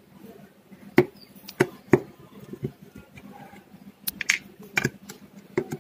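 Irregular sharp clicks and knocks of hands and a tool handling the plastic pump housing and parts inside an opened dishwasher, about eight in all, the loudest about a second and two seconds in.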